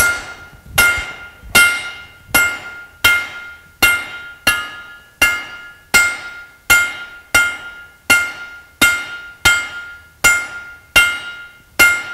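A big cross-peen forging hammer strikes a steel bar on an anvil in a steady rhythm, about one blow every three-quarters of a second. Each blow leaves a clear metallic ring. The steel is being drawn to a point while cold.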